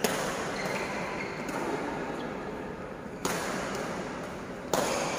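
Badminton rackets striking a shuttlecock in a doubles rally: four sharp hits about a second and a half apart, each echoing in the large hall.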